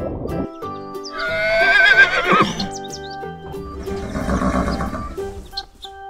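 A horse whinnying once: a loud, wavering call that starts about a second in and breaks off about a second and a half later, over background music.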